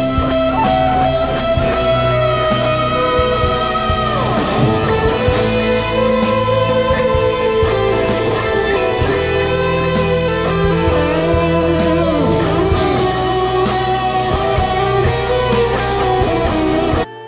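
Live rock band playing, led by an electric guitar solo of long, sustained notes bent up and down in pitch over drums, bass and keyboards. Near the end the full band stops abruptly, leaving a much quieter held chord.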